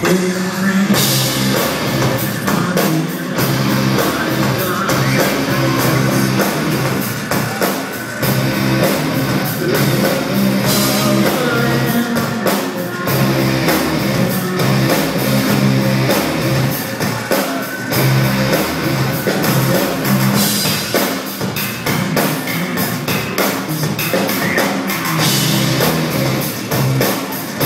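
Live rock band playing loud: a drum kit, electric guitar and a repeating bass line, with a singing voice over them.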